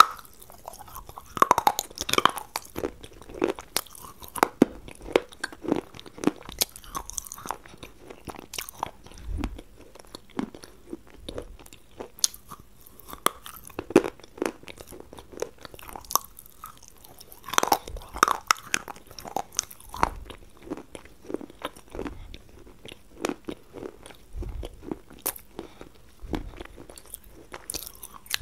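Close-up crunching as a person bites into and chews a hard, brittle piece. Sharp crackling bites come in two heavier clusters, about a second and a half in and again near the middle, with chewing crunches in between.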